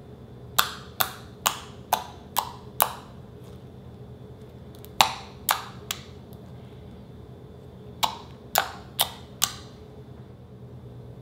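Fingertips poking into thick white slime, each poke letting out a sharp popping click of trapped air. About thirteen pops come in three quick runs of six, three and four, roughly two a second.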